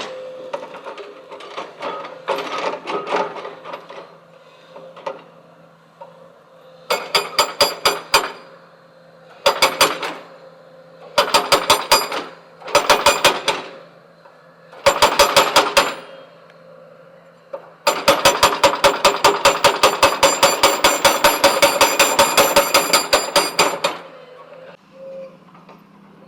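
Hydraulic rock breaker on a CAT backhoe loader hammering stone in bursts of rapid, evenly spaced blows, about seven a second, with the longest burst lasting some six seconds near the end. Irregular clattering comes before the first burst.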